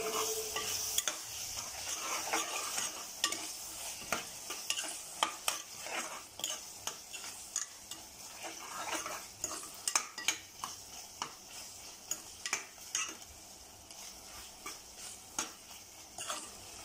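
Metal ladle stirring vegetables in thick masala gravy in a pressure cooker, with repeated irregular scrapes and knocks against the pot, over a steady sizzle of the gravy cooking.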